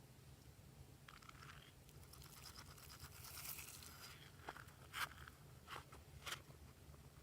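Glossy slime being worked by hand: faint crackling and scraping, then a few small sharp pops.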